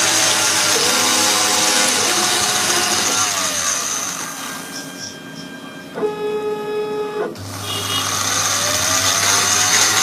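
CNC router cutting foam, its spindle and drive motors running with a mechanical whine. The noise drops away about four seconds in, a steady pitched whine sounds for about a second, then the machine noise comes back with a tone rising as it speeds up.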